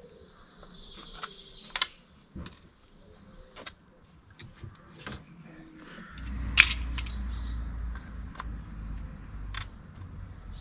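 Light clicks and knocks of a plastic tailgate handle assembly being handled and offered up to a car's boot lid, with a sharper click about six and a half seconds in. A low rumble comes in about six seconds in and carries on.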